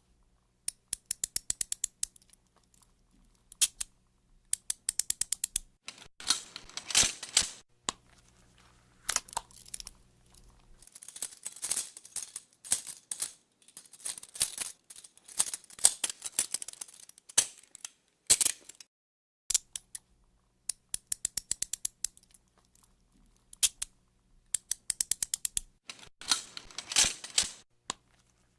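Metal handcuffs ratcheting, in runs of quick sharp clicks at about ten a second, with bouts of metallic rattling and clinking in between.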